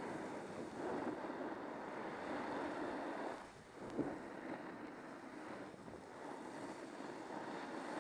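Skis sliding and scraping over packed snow through a series of turns, with wind rushing over the microphone; the hiss swells and dips from turn to turn, with a short knock about four seconds in.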